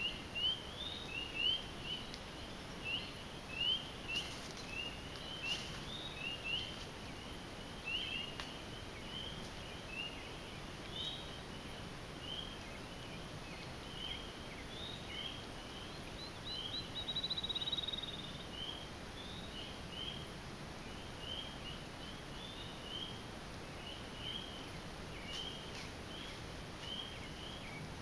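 A chorus of spring peepers: many short rising peeps, overlapping and repeating without a break. A little past halfway, a longer, higher trill sounds for about a second.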